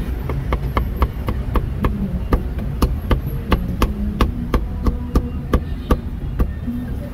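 Steel meat cleaver chopping cooked meat on a thick round wooden chopping block: a steady run of sharp chops, about four a second.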